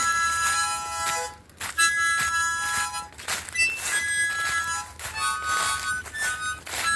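Solo harmonica playing a slow instrumental melody: held notes and short phrases, with brief gaps between them.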